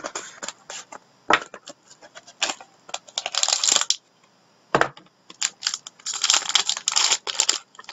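A sealed trading card pack being torn open and handled: crackling of the wrapper and packaging in two longer stretches, between sharp clicks and taps as it is pried apart.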